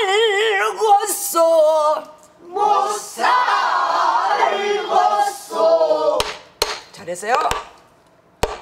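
A woman sings a pansori phrase with heavy, wavering vibrato, then a group of voices sings it back together. Near the end come four sharp strokes on a soribuk, the studded barrel drum that keeps the rhythm.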